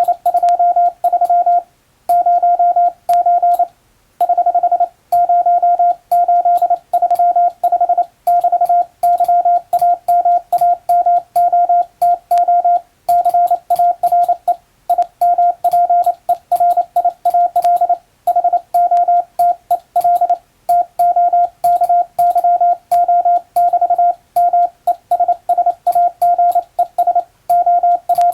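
Hand-sent Morse code: a steady beep of about 700 Hz keyed on and off in short dots and longer dashes as letters are sent from a telegraph key, with a light click at each keying. Short pauses between the groups mark the letter and word spaces.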